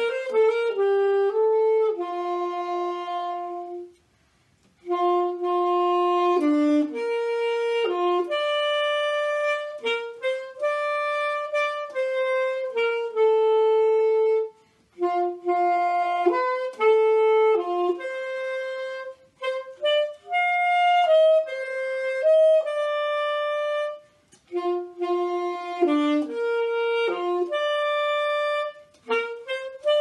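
Unaccompanied alto saxophone playing a melodic solo line of held and moving notes, with brief pauses for breath about four, fifteen and twenty-four seconds in.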